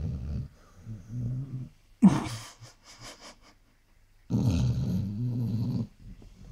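Basset hound snoring: two long, loud, low snores, one right at the start and one about four and a half seconds in, with quieter snores between and a sharp snort about two seconds in.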